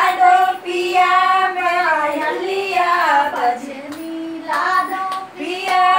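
A high voice singing a Dehati folk song, long held notes in phrases that slide downward at their ends, with short breaks between phrases.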